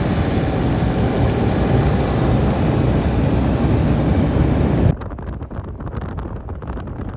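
Jeep Wrangler driving through snow: a loud, steady rumble of engine and tyres. It cuts off abruptly about five seconds in, and gusty wind buffets the microphone after that.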